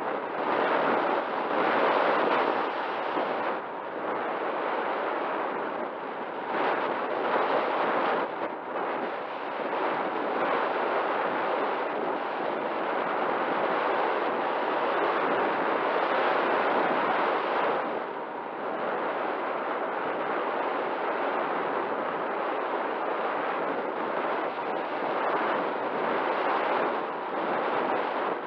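Rushing airflow buffeting the onboard action camera's microphone on an RC glider in flight, a steady roar that swells and eases as the plane's speed and the wind change.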